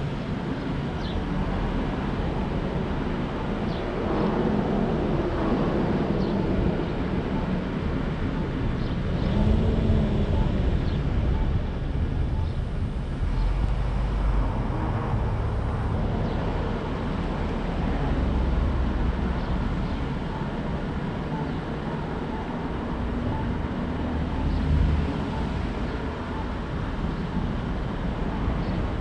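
A car driving in city traffic: steady road and engine noise with slow swells as traffic passes. From about nine seconds in there is a faint, regular beeping, the backup alarm of a reversing work truck.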